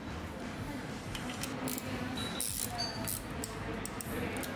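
Small ratchet bit driver clicking in short, irregular runs as screws on the mid-drive motor's side plate are tightened, over background music.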